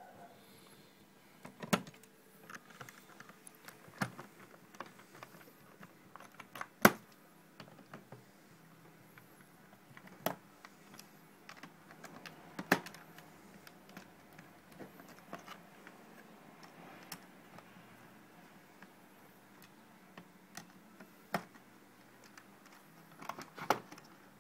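Hand screwdriver and small metal clamps clicking and knocking against metal bars and plastic sign letters as the clamps are screwed down. Scattered sharp clicks, the loudest about seven seconds in, with a quick cluster near the end.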